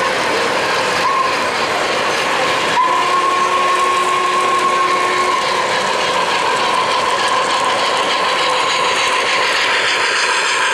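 O-gauge model N&W Y6b steam locomotive's sound system blowing its steam whistle: a brief toot about a second in, then a longer chord-like blast from about three seconds in that fades a few seconds later. Under it, the train's wheels rumble and click along the three-rail track.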